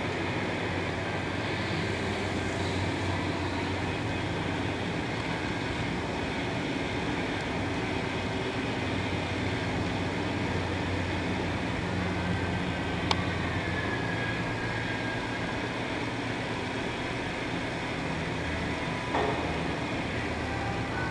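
Steady machinery hum with an even drone throughout, broken by a sharp click about two-thirds of the way in and a short knock near the end.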